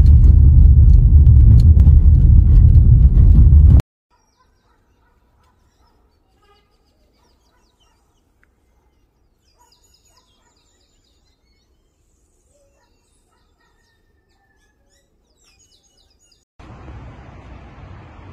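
Loud, steady low rumble of a car driving along an ash-covered road, heard from inside the cabin, cutting off suddenly after about four seconds. Near silence follows with a few faint chirps. Near the end a steady rushing noise starts up.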